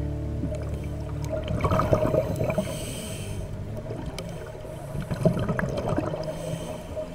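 Scuba regulator breathing heard underwater: airy inhalation hisses alternating with gurgling bursts of exhaled bubbles, coming and going every second or two.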